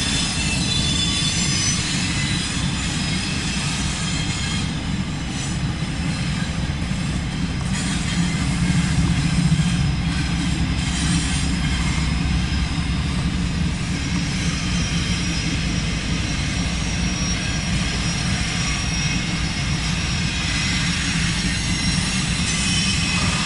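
Double-stack intermodal freight train of container cars rolling past, with steady wheel-and-rail noise. About eight to eleven seconds in, the diesel engine of a mid-train CSX locomotive passes, and its low rumble is the loudest part.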